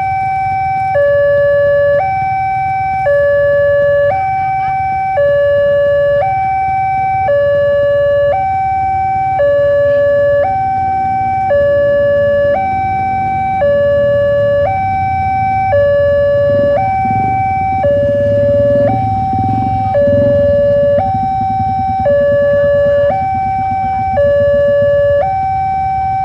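Railway level-crossing alarm sounding its two-tone hi-lo warning from the signal's loudspeaker, each tone about a second long, repeating steadily while the barrier is down and the red lamps flash: a train is approaching. A low rumble runs underneath.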